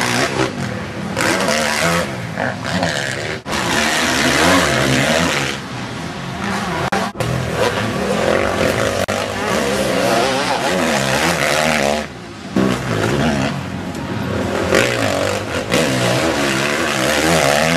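Motocross bike engines revving hard and dropping off as riders race past, the pitch rising and falling again and again. The sound drops out briefly a few times.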